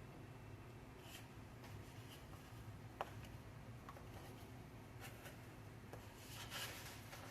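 Quiet kitchen food-preparation handling: a few scattered light clicks and taps, the sharpest about three seconds in and a short rustly cluster near the end, over a low steady hum.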